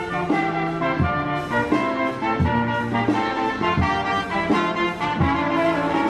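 Street brass band playing an upbeat tune: trumpet, trombone and saxophone over a steady beat.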